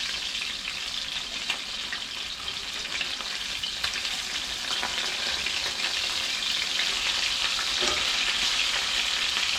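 Whole bluegill frying in hot oil in a cast iron skillet, just flipped: a steady sizzle with scattered small crackling pops, growing slightly louder toward the end.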